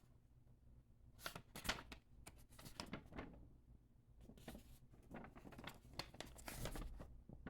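Phone box packaging being handled: bursts of paper and cardboard rustling with light clicks and taps.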